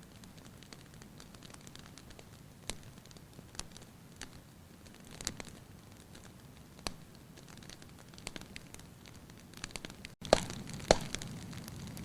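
Wood fire crackling, with scattered sharp pops and snaps over a low steady hiss. The sound drops out for an instant about ten seconds in, and two louder pops follow close together.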